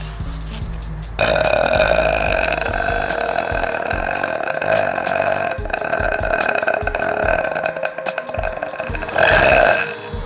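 A girl's very long, drawn-out burp, starting about a second in and held for about eight seconds, swelling louder just before it ends.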